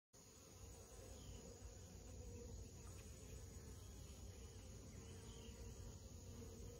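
Faint, steady buzzing of honeybees starting right after silence, over a low rumble.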